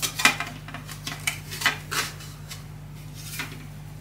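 Hard plastic parts of an RC crawler kit clicking and clattering as they are handled and pried apart. There is a quick string of sharp clicks in the first two seconds, then a few sparser ones.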